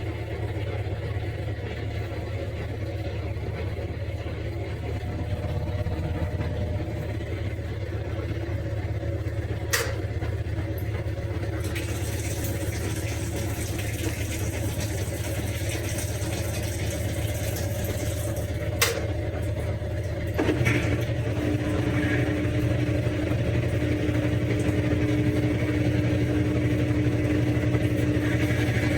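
Top-load washing machine running a spin test after its agitator was replaced: a steady motor hum with two sharp clicks, and about two-thirds of the way through it grows louder and a steady whine comes in as the spin picks up.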